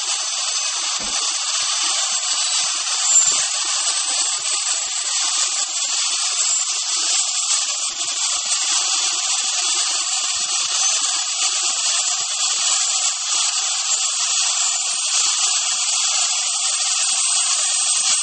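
Cold nitrogen vapour hissing steadily out of a telescope instrument's liquid-nitrogen dewar as it is filled from a storage dewar through a hose. Vapour escaping rather than liquid dripping shows that the dewar is not yet full.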